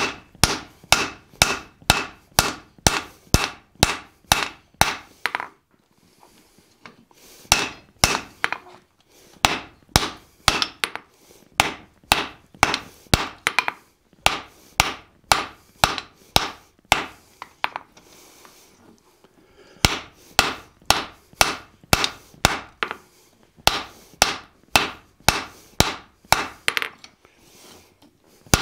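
Hand hammer striking a glowing steel hammer head on the anvil, smoothing its peen. The blows come in steady runs of about two to three a second, with two short pauses of a couple of seconds.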